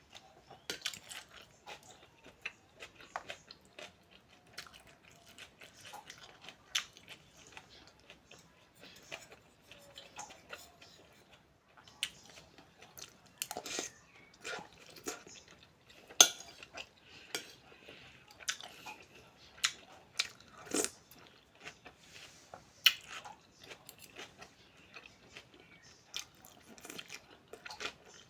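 Cutlery clinking against a bowl, with chewing sounds, while eating noodles: irregular clicks and clinks, the sharpest of them around the middle.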